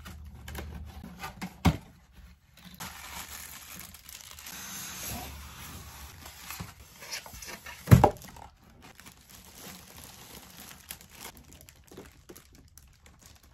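Cardboard box and plastic packaging being handled while a record player is unboxed: rustling and crinkling of cardboard and a clear plastic bag, with scattered clicks. A sharp knock comes about two seconds in and a louder thump about eight seconds in.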